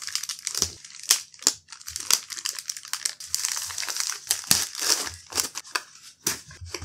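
Plastic courier mailer crinkling and tearing as it is slit with a folding knife and pulled off a cardboard box: a dense run of sharp crackles and rustles, thickest in the middle.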